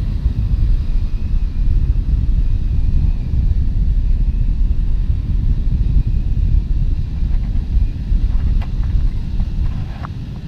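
Wind buffeting the microphone as a steady low rumble, with a few faint clicks late on.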